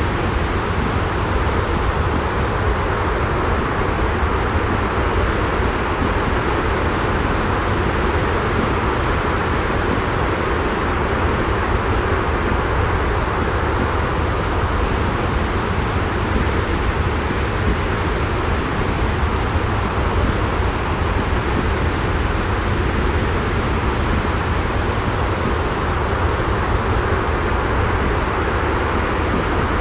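Steady, unchanging rushing noise with a deep rumble underneath, a continuous white-noise sleep track.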